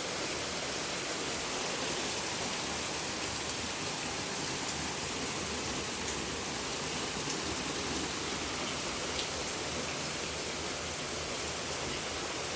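Heavy rain falling steadily: an even, constant hiss, with a few faint ticks of drops.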